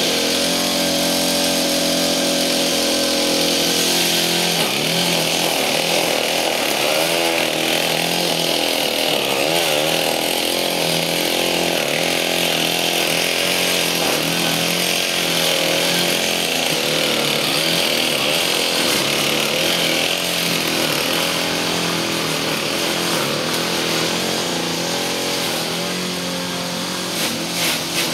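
Gas string trimmer (weed wacker) running continuously, its engine pitch wavering up and down as the throttle is worked. It turns a little quieter after about 20 seconds.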